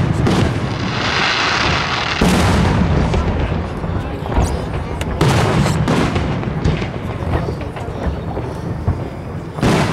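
Aerial fireworks shells bursting overhead: a series of loud booms, about five in ten seconds, over a steady dense background of noise.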